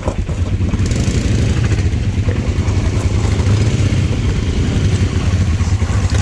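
ATV engine running steadily as the quad bike rides along.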